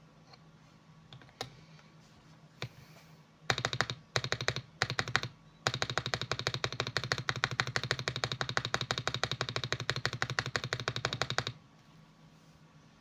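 Mechanical keyboard with lubed Akko switches being typed on fast. A couple of single key clicks come first, then three short bursts of keystrokes and a long, even run of about ten strokes a second that stops abruptly near the end.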